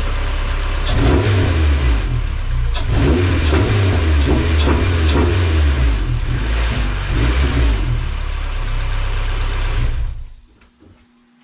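Freshly rebuilt Honda K24 four-cylinder engine in an Acura RSX race car running, its revs rising and falling several times, then switched off about ten seconds in.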